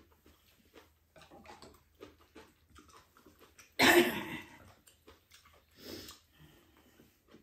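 Eating sounds: wooden spoons scraping and tapping in ceramic bowls of porridge, and chewing, with one brief loud burst about four seconds in.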